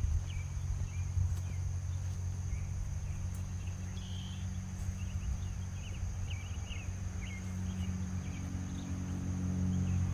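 Outdoor summer ambience: a steady high insect drone with scattered short chirps, over a low steady hum that grows louder near the end.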